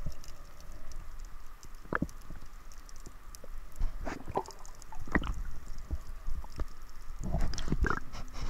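Muffled water noise picked up by an underwater camera: a low rumble with scattered knocks and gurgling splashes, growing busier near the end.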